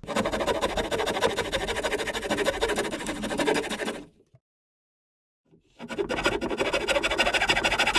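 Rasp scraping wood in quick, even strokes, cutting a notch into a timber upright to make room for a hose. It runs for about four seconds, stops for over a second, then starts again.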